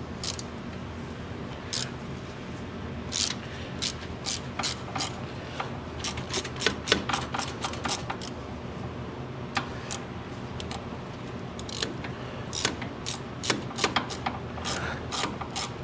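Irregular sharp metal clicks and clinks of hand tools at work on the mower's plate bolts, coming in clusters, over a steady low hum.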